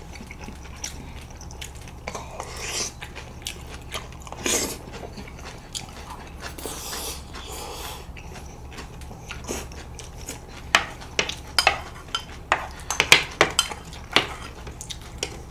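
Chopsticks and spoons clicking and scraping against plates and bowls while two people chew their food. The clinks are sparse at first, then come quick and sharp in the second half.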